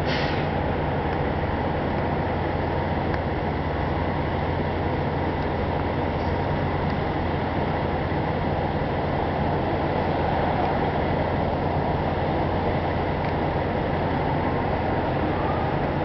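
Steady low mechanical hum with a constant rushing noise over it, unchanging throughout.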